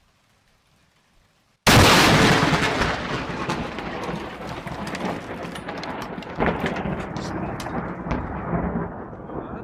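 Close lightning strike: near silence, then a sudden, very loud thunderclap about a second and a half in, followed by a long crackling, rumbling roll of thunder with scattered sharp cracks that slowly fades.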